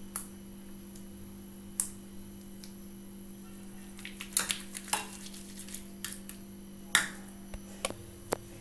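Homemade borax-and-white-glue slime being squeezed and stretched in the hands, giving sharp little clicks and pops scattered a second or so apart, over a steady low hum.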